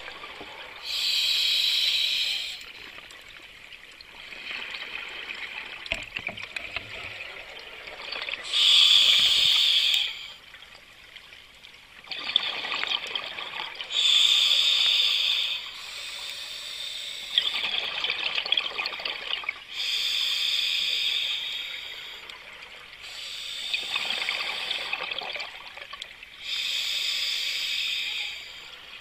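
Scuba diver breathing through a regulator underwater: loud bubbling bursts of exhaled air about every six seconds, with a quieter hiss between them.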